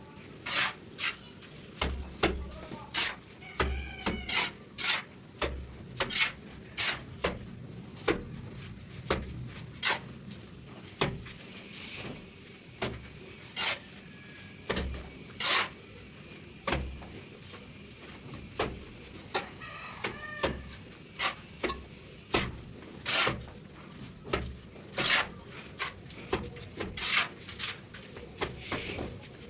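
Steel plastering trowel working cement-sand mortar: a steady run of sharp knocks and slaps, about one or two a second.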